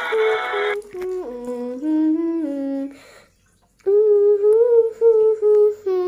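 A voice humming a slow melody in two phrases with a short pause between, after a fuller music passage that breaks off about a second in.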